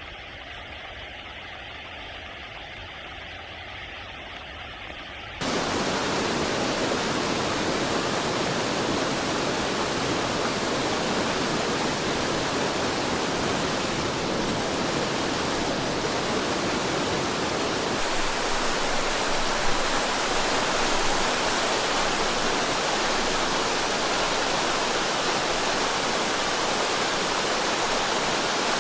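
A fast river rushing, a loud, steady roar of water that starts suddenly about five seconds in. Before it there is a quieter hum with a few faint steady tones.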